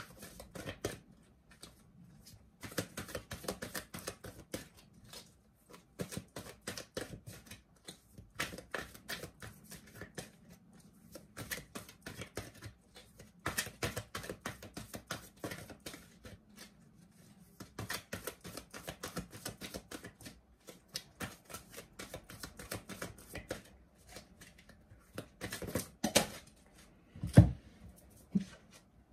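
A deck of tarot cards being shuffled by hand: runs of rapid papery clicks lasting a few seconds each, with short pauses between them. Near the end come a couple of louder thumps.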